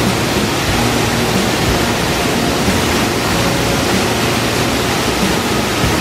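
Loud, steady rush of water falling over a small weir on a swollen, fast-flowing mountain stream.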